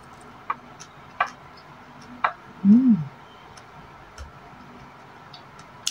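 A person chewing crispy fried fish skin close to the microphone: a few separate sharp crunchy clicks in the first two and a half seconds. About three seconds in comes a short closed-mouth 'mmm' that rises and falls in pitch.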